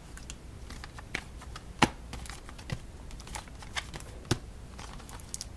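Playing card deck boxes being handled and set down on a table: scattered light taps and clicks, with two sharper knocks about two seconds and four seconds in.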